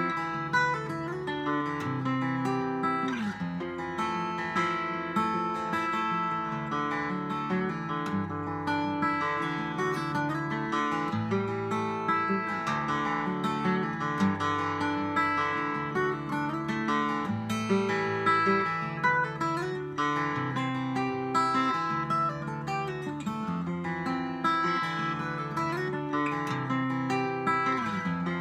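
Solo acoustic guitar played fingerstyle: a moving bass line under a picked melody, with the notes left to ring into each other.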